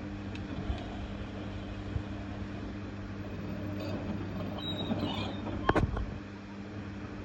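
LG F1222TD washing machine running with a steady hum and rumble from the drum, with a few sharp knocks about six seconds in. The drum bearings have gone and the bearing seal has failed.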